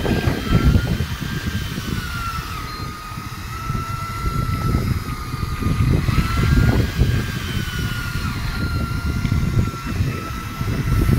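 Boat engine running with a low rumble that swells and eases, while wind buffets the microphone. Over it runs a thin whine that wavers slowly in pitch.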